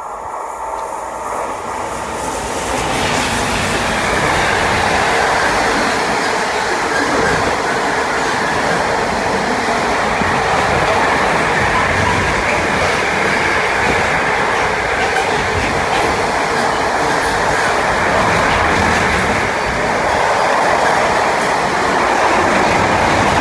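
Class 88 electro-diesel locomotive 88006 passing through the station, a rushing train noise of wheels on rail that builds over the first few seconds, then holds loud and steady.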